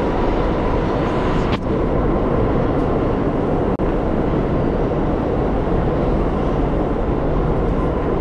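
Subway train running through the tunnel: a loud, steady rumble and roar of wheels on rail, with a faint steady whine. Two brief clicks sound about one and a half and about four seconds in.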